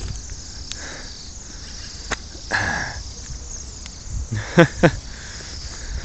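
A large flock of Bohemian waxwings calling together, a steady chorus of high, thin trills, with two short louder sounds about four and a half seconds in.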